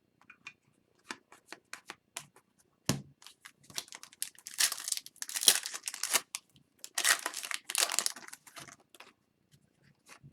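A 2021-22 Upper Deck Series 1 hockey card pack wrapper being torn open and crinkled, in two spells of crackling lasting a second or two each, after a few light taps and a sharp knock about three seconds in.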